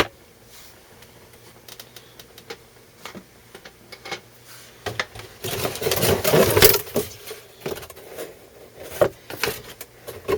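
Plastic parts and packaging being handled during unpacking: scattered clicks and light knocks, with a louder stretch of rustling a little past the middle.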